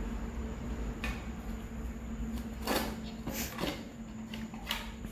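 German Shepherd eating curd and roti from a stainless steel bowl: wet lapping and licking with a few short knocks and clinks of the bowl on the concrete floor, over a steady low hum.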